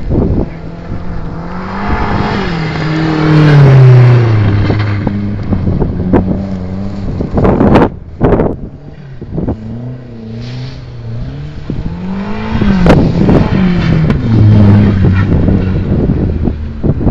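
Rally car engine being driven hard, its pitch rising and falling several times with throttle and gear changes. It is loudest a few seconds in and again about two-thirds of the way through.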